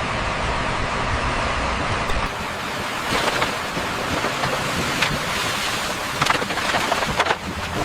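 Steady, noisy rumble of construction machinery. Its character changes abruptly about two seconds in, and a few sharp clicks and knocks follow.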